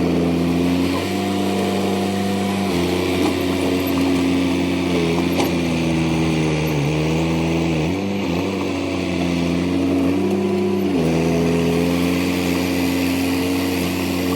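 A heavy machine's engine running. Its speed steps up about a second in, drops back, dips twice in the middle and rises again near the end.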